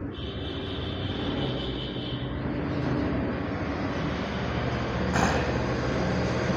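Steady low rumble of a heavy road vehicle's engine outside, growing slowly louder, with a short hiss about five seconds in. For the first two seconds or so a marker squeaks as it writes on the whiteboard.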